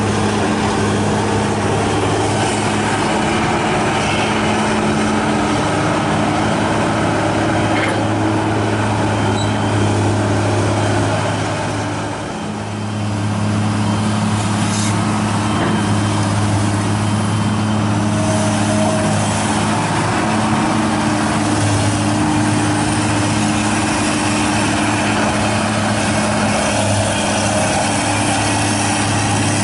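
Komatsu hydraulic excavator's diesel engine running steadily while it digs, briefly quieter about twelve seconds in.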